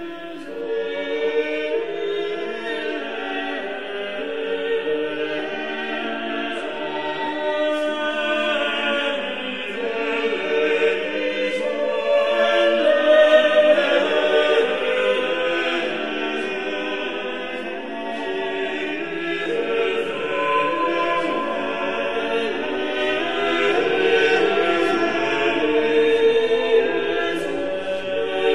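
Background choral music: a choir singing long, overlapping held notes, swelling a little louder about halfway through and again near the end.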